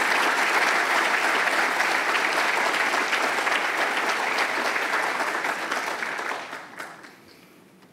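Audience applauding, steady and dense, dying away about six and a half seconds in.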